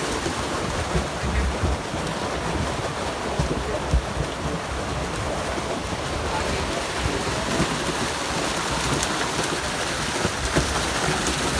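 Water lapping and splashing around the boats, with wind buffeting the microphone in a low rumble. A single sharp knock comes about four seconds in.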